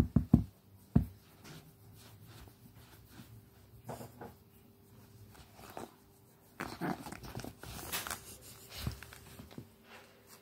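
Cavalier King Charles spaniel puppy being stroked on a rug, with a few soft thumps in the first second, then quiet scuffling and rustling in short bursts, busiest in the second half.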